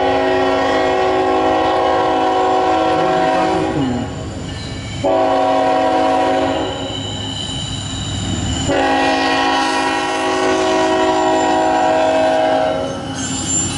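Air horn of a CSX freight locomotive sounding for a grade crossing: one long blast, a gap of about a second four seconds in, then a second long blast held for about eight seconds. A low rumble of the approaching train runs underneath.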